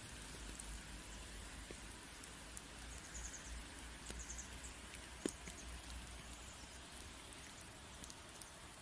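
Faint outdoor ambience: a steady hiss over a low, fluctuating rumble, with scattered light clicks and two brief high chirps about three and four seconds in.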